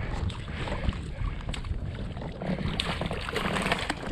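Wind rumbling on a chest-mounted camera's microphone and water moving around a kayak, with a few light clicks and knocks about three seconds in.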